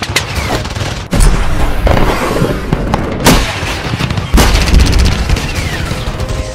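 Battle sound effects for an animated intro: continuous gunfire and explosion booms over a heavy low rumble, with big hits about a second in, past three seconds and past four seconds, the last followed by rapid fire.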